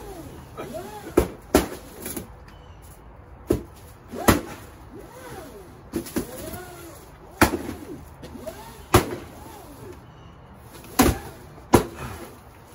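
Wooden stick striking a paper piñata: sharp thwacks every second or two, some in quick pairs.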